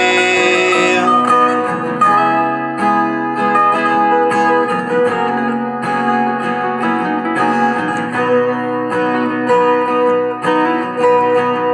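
Instrumental break of a rock ballad: a guitar plays a lead line of single picked notes over sustained backing, opening with a held note that slides down in pitch.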